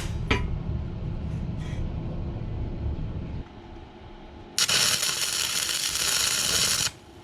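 A grinder is working the welds of a steel frame. After a low rumble with a few knocks, the disc bites the steel about halfway in for about two seconds: a harsh grinding hiss that starts and stops abruptly.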